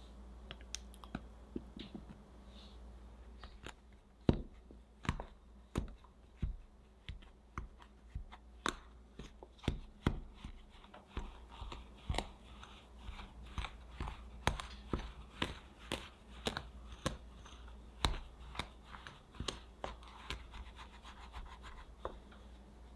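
Plastic dough scraper chopping cold butter into flour and cocoa in a glass bowl. From about four seconds in it makes a steady run of sharp taps, about one and a half a second, with soft scraping between.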